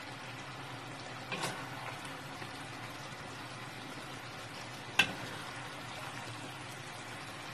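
A pan of chicken curry bubbling and sizzling steadily while it is ladled onto a plate, with a soft clink just over a second in and a sharp clink of the ladle about five seconds in.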